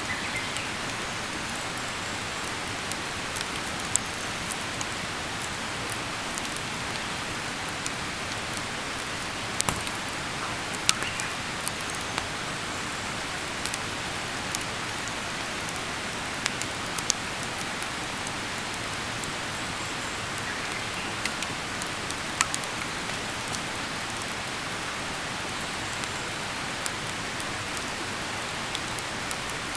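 Wood campfire burning: a steady hiss with sharp crackles and pops scattered irregularly throughout, a handful of them louder.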